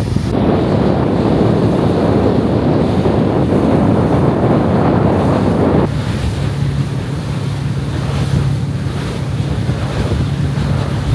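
Wind blowing on the microphone and water rushing past a ferry's hull at sea, loud for about six seconds, then cutting down suddenly to a steadier low hum from the ship.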